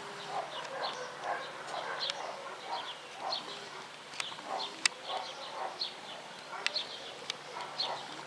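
A dog barking over and over, about two barks a second.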